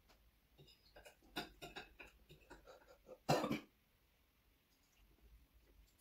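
A metal fork clicks and scrapes against a plate as noodles are gathered, then a single short, loud cough a little over three seconds in.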